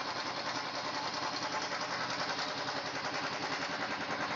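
Royal Enfield single-cylinder four-stroke engine idling steadily with an even pulse, running on a rich mixture with the choke open.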